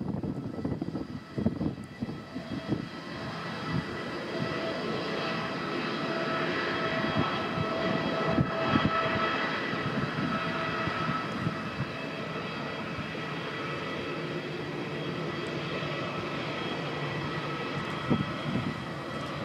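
Airbus A350-1000's twin Rolls-Royce Trent XWB turbofans at takeoff power during the takeoff roll and rotation: a steady jet noise with several high whining tones over it, building a few seconds in and then holding.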